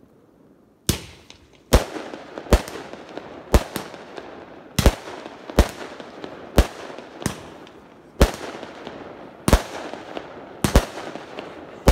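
Fireworks going off: about a dozen sharp bangs, roughly one a second, starting about a second in, with a hissing crackle between them.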